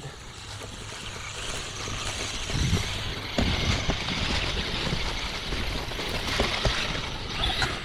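Traxxas Mini Summit RC truck's electric motor and drivetrain running as it pushes through grass and mud, a steady hiss that swells and eases, with several knocks as it hits bumps, about a third of the way in and again near the end.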